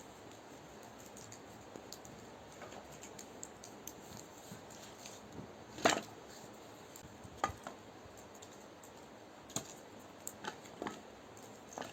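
Scattered sharp knocks and clicks, irregular and a few seconds apart, the loudest about halfway through, over a faint steady hiss.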